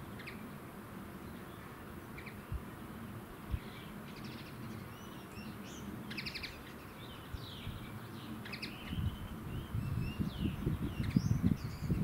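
Small songbirds chirping and twittering in short high phrases. A low rumble builds up in the last few seconds and grows louder than the birds.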